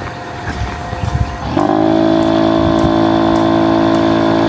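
Electric air pump running steadily as it inflates an inflatable tent's air beams; about a second and a half in, its hum becomes much louder and then holds at one steady pitch.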